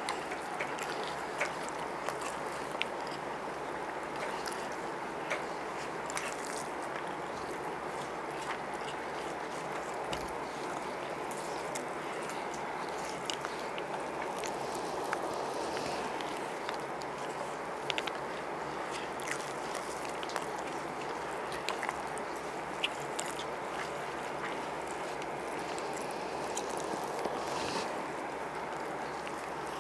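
Two people eating chicken biryani by hand: soft squishes of rice being mixed and scooped, and chewing, as small scattered clicks over a steady background hiss.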